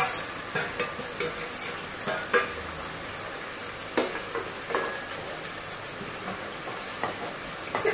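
A spatula stirring curry in a kadai, giving a scattering of light knocks and scrapes against the pan, most of them in the first five seconds. Under them the curry sizzles steadily.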